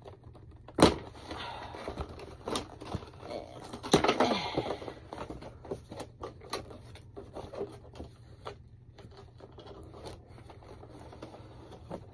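A cardboard booster box being handled and opened: scattered taps, scrapes and rustles, with louder knocks about one second and about four seconds in.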